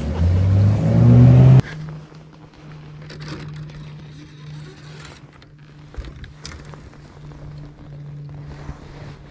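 Bass boat's outboard motor revving up, its pitch rising, then cutting off suddenly about a second and a half in. After that comes a steady low hum with scattered light clicks and rustles of fishing rods and reels being handled.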